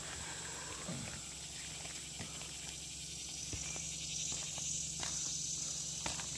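Steady high-pitched insect drone, with the hiss swelling a little from about four seconds in. A few faint taps sound along the way.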